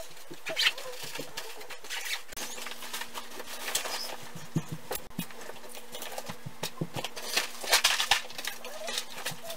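Duffel bags and fishing gear being handled and packed: fabric rustling and scraping, broken by many light clinks and knocks.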